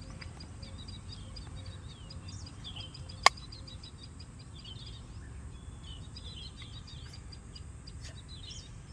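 Small birds chirping over a steady low background hum, with one sharp click about three seconds in.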